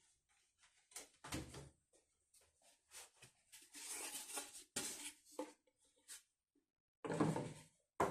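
Irregular knocks, clicks and rustling of objects being handled in a small room, with a louder clatter about seven seconds in.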